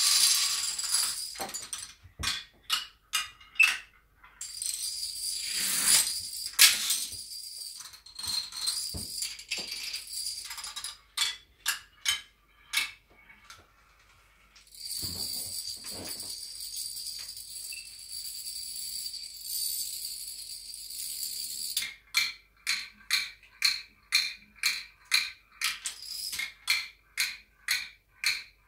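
A long chain of plastic toy dominoes toppling: runs of sharp clicks, two stretches of dense rattling clatter, and near the end a quick, even clicking of about three dominoes a second.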